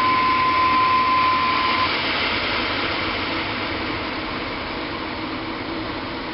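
Blower fan of a 2007 Whirlpool gas furnace running with the burners shut off: a steady rush of moving air that slowly eases a little in level. A steady whine stops about two seconds in.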